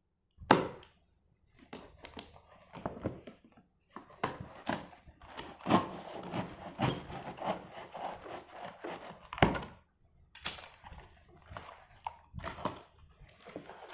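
A knife scraping and slicing along packing tape on a cardboard box, with sharp knocks of the blade and hands against the cardboard, the strongest about half a second in and again near the middle. Near the end the cardboard flaps are pulled open.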